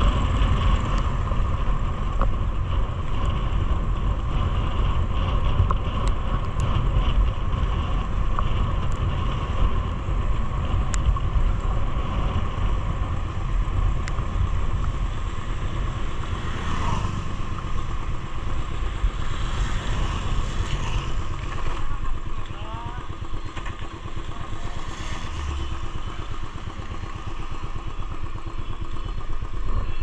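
Motorcycle engine running at steady, low revs on a slow downhill ride, under an even hiss of wind and wet road. It grows slightly quieter about two-thirds of the way through.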